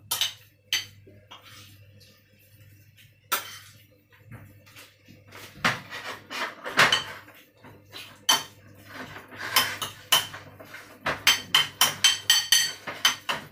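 Metal fork clinking and scraping against a ceramic bowl while mixing minced pork and shrimp. Taps are irregular at first and quicken near the end to about four or five a second.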